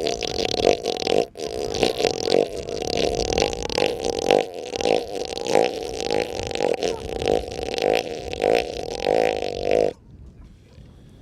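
Elephant seal burping: a long, deep, guttural call made of a rapid train of pulses, swelling and easing several times, that stops abruptly near the end.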